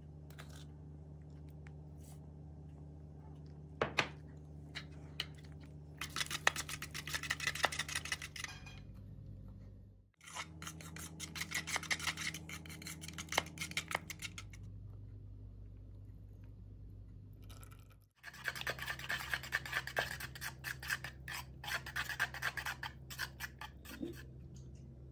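Fork whisking a runny batter in a plastic bowl: fast scratchy tapping of metal on plastic in three long stretches, over a steady low hum.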